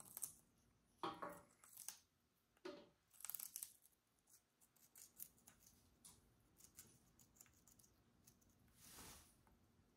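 African grey parrot biting and tearing at a chunk of watermelon with rind held in its foot: several faint, irregular crunching bites, most of them in the first few seconds.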